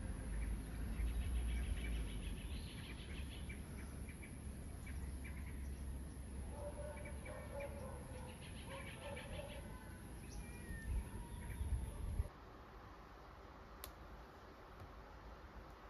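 Birds chirping and trilling outdoors over a steady low rumble. About twelve seconds in the outdoor sound cuts off to quiet indoor room tone, with a single sharp click near the end.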